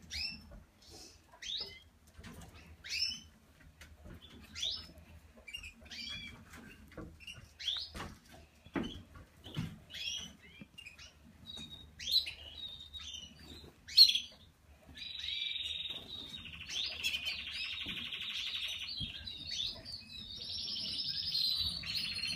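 Canary nestlings begging while being hand-fed: thin high chirps about once a second, then, from about two-thirds of the way in, a continuous rapid chittering.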